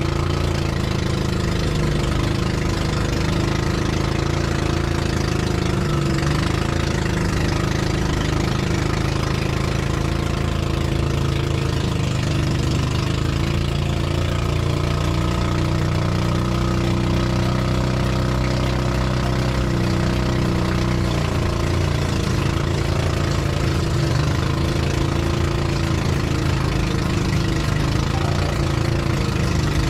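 Pump boat's inboard engine running steadily while the outrigger boat is under way, its pitch shifting slightly a few times.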